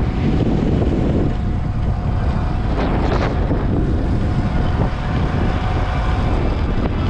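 Heavy wind buffeting on the microphone while riding an electric Sur-Ron X dirt bike into a headwind, with a faint steady whine underneath.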